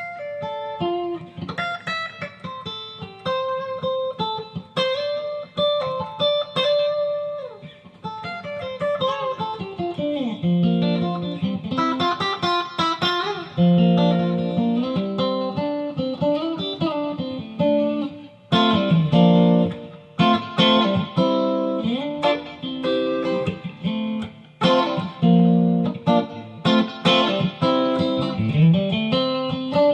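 Custom Stratocaster-style electric guitar being played: a run of single notes and note clusters with several string bends, the bends clearest about a third of the way in, near the middle and near the end.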